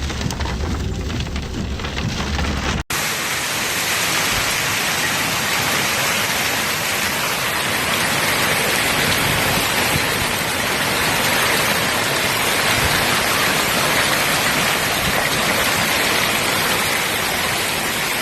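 A heavy storm downpour beating down as a dense, steady hiss. The first three seconds or so carry a deep rumble beneath it. The sound then cuts abruptly to an even, brighter hiss that runs on unchanged.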